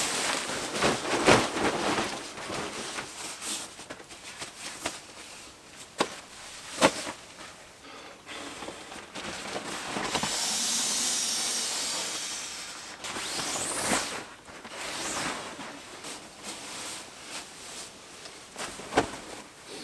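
Nylon fabric rustling and scraping as a bivy bag is spread out on a groundsheet. Then comes a steady rush of air for about four seconds as a Nemo Tensor insulated sleeping mat is filled from a pump sack, followed by a quick rising swish and more rustling of gear.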